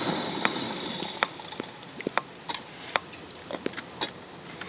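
Backpacking stove's burner hiss dying away over the first second or so as the heat is turned off. It is followed by scattered light clicks and taps.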